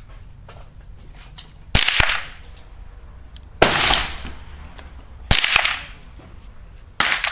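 Four rifle shots fired about one and three-quarter seconds apart, each a sharp crack followed by a short echo.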